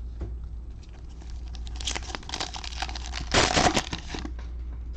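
Cellophane wrapper of a Panini Mosaic football cello pack being torn open and crinkled, a crackling burst in the middle, loudest a little past halfway.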